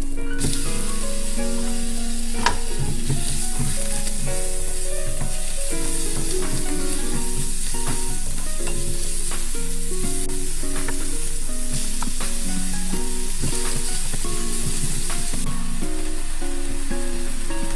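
Food sizzling steadily in a hot frying pan, with one sharp click about two and a half seconds in. A soft melody of background music plays underneath.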